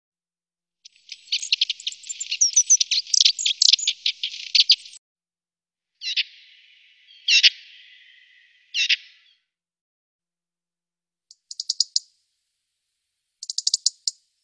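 Small songbirds calling: a dense run of rapid high chattering notes lasting about four seconds, then three separate calls spaced over about three seconds, then two short, very fast high trills near the end.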